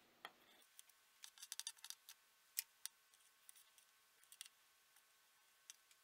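Near silence broken by faint, short clicks and taps of metal tweezers and a soldering iron tip against a circuit board's pads and pins, while leftover Wood's metal is cleared off. The clicks come in a quick cluster in the first half, then scattered singly.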